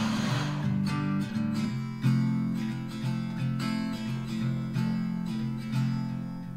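Background music of strummed acoustic guitar. In the first half second the whirring of a blender fades out under it.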